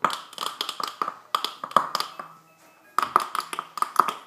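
An iMac making rapid popping and crackling in bursts of about a second, with short gaps between them, as its screen freezes; the fault is undiagnosed, and some suspect a failing hard drive, others the RAM.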